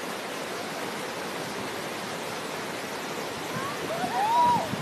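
River rapids rushing steadily over a low weir. Near the end a short high-pitched cry rises and falls over the water noise.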